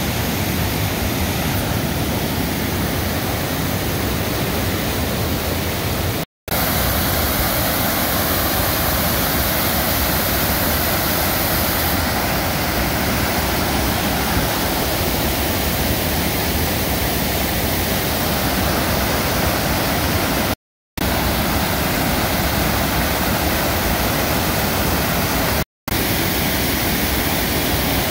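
Provo River Falls in heavy flow: a loud, steady rush of whitewater pouring over rock ledges, cut off by three brief silent gaps.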